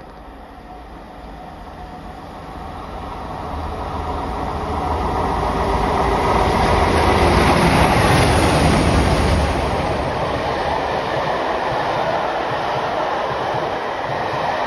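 Passenger train hauled by Class 47 diesel 47812 and Black Five steam locomotive 44871 running through a station without stopping. It grows louder as the locomotives approach and is loudest with a deep rumble about six to nine seconds in. After that the coaches rattle steadily past.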